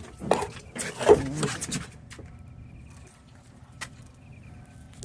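Two short voice-like calls in the first two seconds, then the charter boat's engine idling with a steady low hum, and one sharp click about four seconds in.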